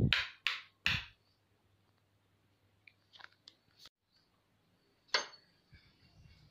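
Sharp clicks and knocks from a phone being handled and a door's metal latch being worked: three close together at the start, a few faint ticks around the middle, and one more knock a little after five seconds in.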